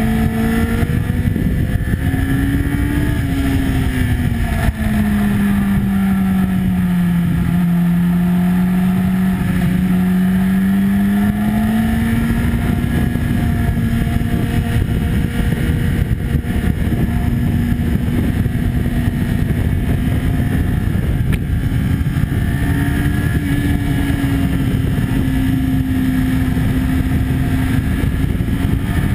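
Sport motorcycle engine at speed on track, heard through heavy wind rush on the onboard microphone. The engine note drops over a few seconds early on as the bike slows for a corner, then climbs slowly and holds fairly steady, rising again near the end.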